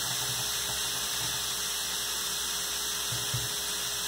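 Chopped onion and garlic sizzling in oil in a nonstick wok as they soften, stirred with a wooden spoon: a steady hiss with a faint steady hum under it, and a soft knock a little past three seconds in.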